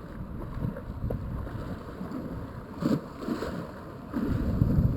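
Wind buffeting the microphone: an uneven low rumble that swells and fades, louder about three seconds in and again near the end.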